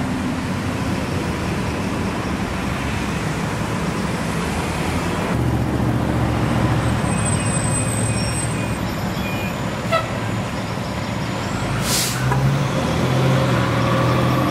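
Fire engine's diesel engine running as the truck moves off, its low note growing stronger about five seconds in. Near the end comes a short burst of air-brake hiss.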